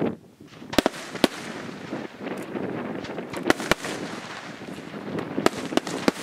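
Aerial firework shells bursting in a display: sharp bangs, several in quick succession about a second in, a pair near three and a half seconds and more near five and a half to six seconds, with a continuous crackle and rumble of the show between them.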